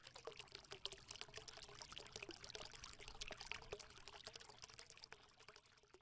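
Faint pouring, trickling water sound, dense with tiny crackling clicks.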